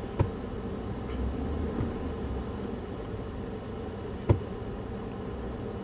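Pickup truck heard from inside the cab, running with a steady hum while reversing slowly, the low rumble swelling briefly about a second in. Two sharp clicks, one just after the start and one about four seconds in.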